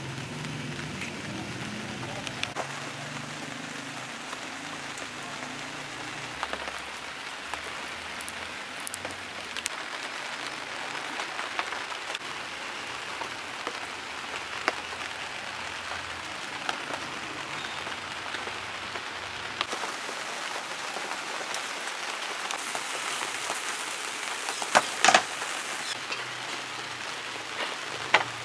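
Steady rain falling on surfaces, with scattered drips and a couple of sharp knocks near the end.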